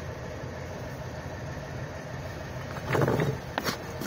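Clinks and knocks of steel gears as a timing idler gear is fitted onto its hub on a diesel engine's front plate: one heavier knock about three seconds in, then a couple of sharp clicks. A steady mechanical hum runs underneath.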